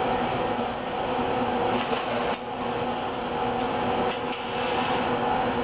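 Motoman SDA10 dual-arm assembly robot's drives running, a steady mechanical hum with a few steady whining tones and a brief dip about two seconds in.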